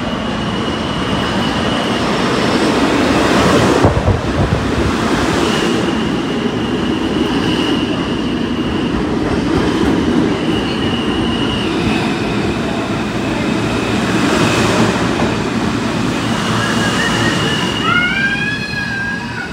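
R160A subway train pulling into an underground station: a steady rumble of wheels on rail, with high squeals on and off. Near the end, curving brake squeals come as the rumble fades, with the train slowing toward a stop.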